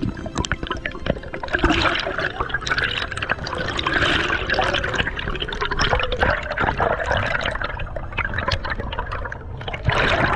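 Underwater bubbling and gurgling water noise, a dense irregular crackle of bubbles, with a louder rush of bubbles near the end.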